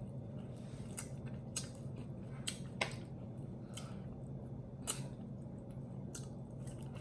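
Close-up eating sounds of saucy roast chicken: sparse wet clicks and smacks of chewing and sticky fingers, over a steady low hum.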